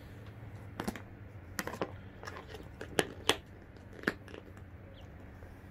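Rooster pecking at spaghetti in a plastic pasta bag: irregular sharp beak pecks and crackles of the bag, the two loudest close together near the middle.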